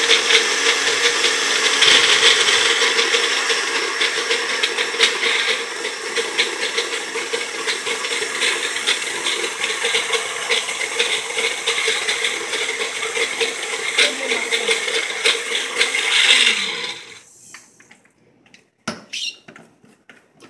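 Magic Bullet blender running, crushing ice with frozen peaches and blueberries, with a steady motor noise and a fine rattle of ice against the cup; it cuts off about three-quarters of the way through, followed by a couple of knocks as the cup is taken off the base.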